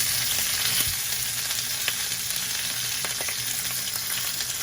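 Food frying in a pan with a steady sizzle, broken by a few sharp clicks or pops.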